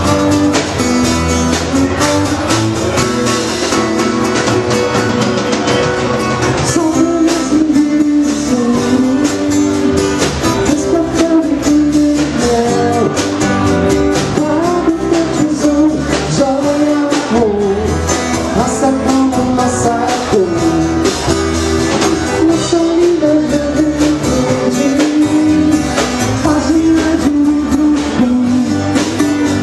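Live rock band playing a song: a man singing into a microphone over acoustic guitar, electric bass and drums.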